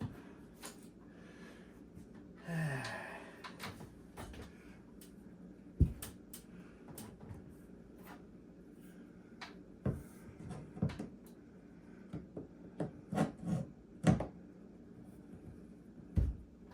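Scattered wooden knocks, clunks and scrapes as a claw tool pries at a wall-mounted kitchen cabinet to get behind a stuck mounting screw. A short grunt comes about two and a half seconds in.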